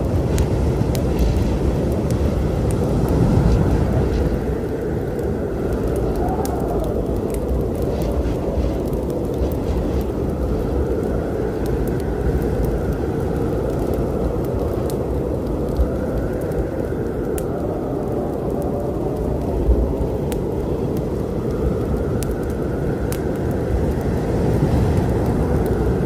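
Storm sound: a deep, steady rumble with a higher tone swelling and fading every few seconds, and scattered sharp crackles of a wood fire over it.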